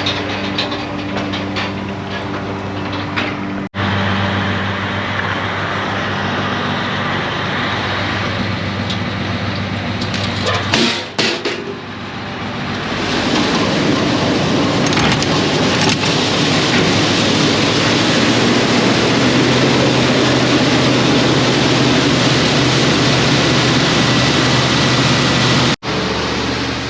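Massey Ferguson 1155 tractor's diesel engine running steadily while driving a grain auger unloading corn, growing louder and fuller with a rushing noise from about halfway through.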